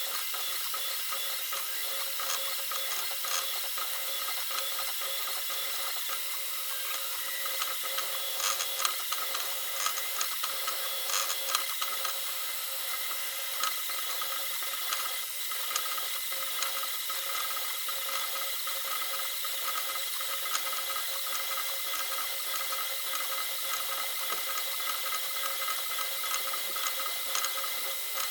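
Creality K2 Plus 3D printer at work: its stepper motors give a steady whine of several tones, with a stream of light clicks and rubbing from its moving parts that grows busier about a third of the way through.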